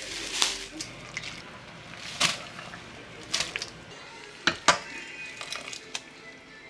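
A handful of sharp clicks and knocks, irregularly spaced, two of them close together about four and a half seconds in, over a faint background.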